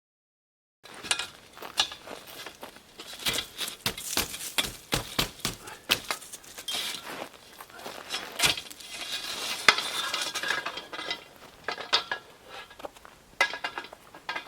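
A busy run of hard clinks and clatters, like dishes, cutlery or glass knocking together, starting about a second in and going on irregularly, with a denser, rustling stretch a little past the middle.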